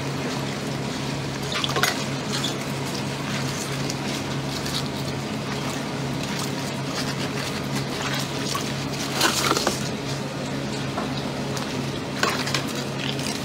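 Water sloshing and splashing in a basin as gloved hands rub and knead a whole octopus under water, with a few louder splashes about two seconds in, around nine seconds and near the end. A steady low hum runs underneath.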